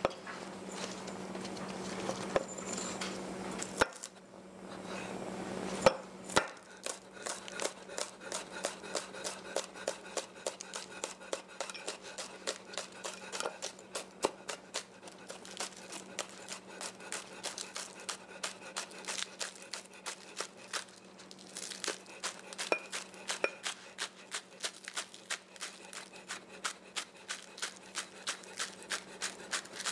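Chef's knife chopping green onions on a wooden cutting board. A few separate knocks come first, then a steady run of quick knife strikes on the board, about two to three a second. A faint low hum runs underneath.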